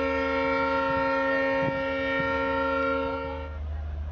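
Horn of a WDP-4D diesel locomotive sounding one long, steady blast of several notes at once, which cuts off about three and a half seconds in. A low rumble continues underneath.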